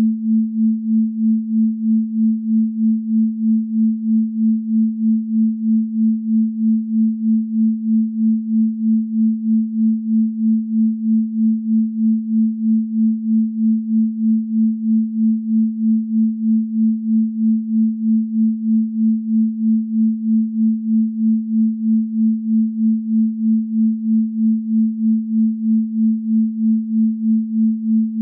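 Electronically generated pure sine tone at 221.23 Hz, the 'Venus frequency' (an A), held steady with a regular pulsing in loudness about twice a second.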